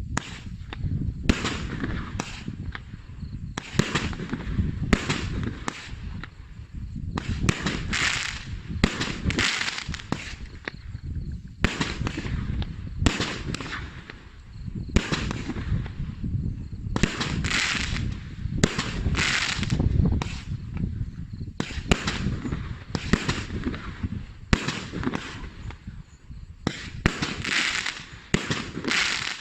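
Joulupukki A7290 consumer fireworks battery (multi-shot cake) firing a long series of shots, sharp bangs coming one after another, often several a second, each trailed by a short hissing burst.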